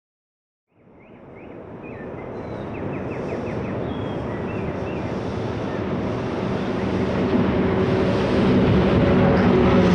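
Sound example of birds chirping and a passing train. It starts about a second in with a few bird chirps over a low rumble, and the train's noise grows steadily louder as it approaches.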